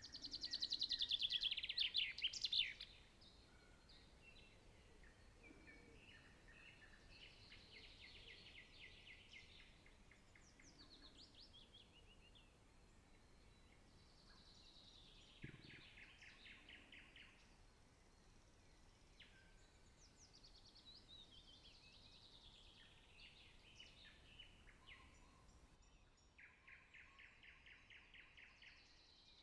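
Songbirds singing in repeated trilled phrases that fall in pitch, the first and loudest in the opening two to three seconds, the rest faint. A soft low thump about fifteen seconds in.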